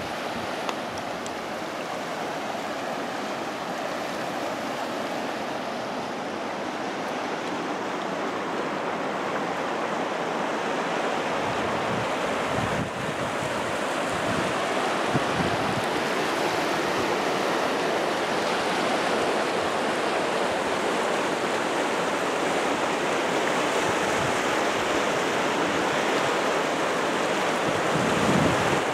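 Steady rush of water pouring over a rocky waterfall, growing slowly louder.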